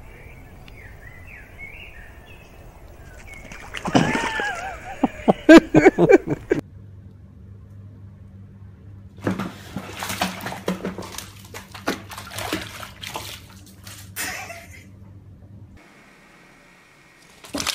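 Water splashing in two bouts, as cats drop into water. The first is a sudden loud splash with a cry, about four seconds in. The second is a longer run of splashing and sloshing in a foamy bathtub, from about nine to fourteen seconds.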